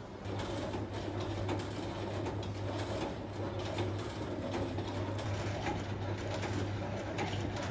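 Steady low electrical hum with a hiss and irregular light clicks and taps over it.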